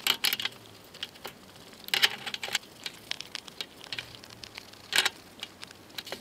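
Small brush scrubbing metal tools in a tub of citric acid rust-remover solution, with scattered clicks and clinks of the tools being handled and three louder short scrapes about two, two and a half and five seconds in.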